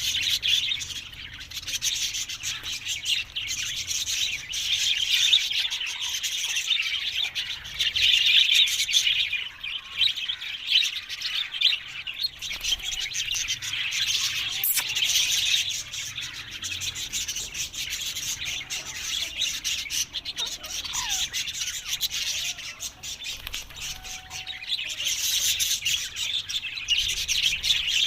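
Ringneck parakeets chattering and screeching, a dense, harsh chatter that swells and fades in waves.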